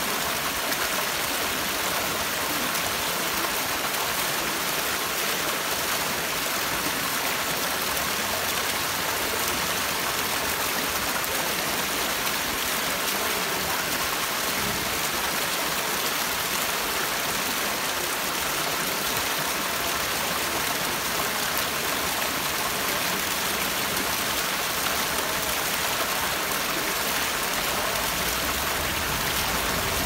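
Fountain water splashing steadily into a stone basin and spilling over its rim.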